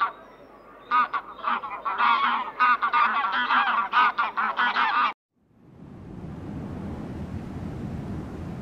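A flock of birds calling at once: a dense run of short, loud, honking calls that cuts off abruptly about five seconds in. After a short pause, a steady rushing noise, like wind on the microphone, builds up.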